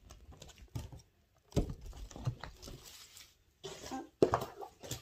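Plastic bags and cardboard packaging of diamond-painting kits being handled and moved about by hand: irregular rustling and tapping, with a sharp click a little after four seconds in.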